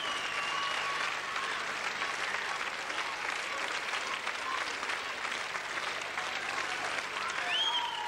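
Large concert audience applauding steadily, with a high call rising and falling above the clapping near the end.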